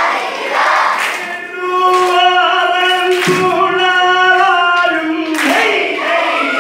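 Aranmula vanjippattu (Kerala boat song) sung by a large group: a crowd chants and shouts the refrain, then a single voice sings a long, drawn-out melodic line, and the loud group chorus comes back in near the end.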